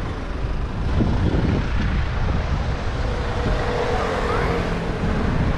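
Steady rushing of wind and road noise on the rider's action-camera microphone while coasting a bicycle downhill in a bike lane, with the hum of nearby car traffic.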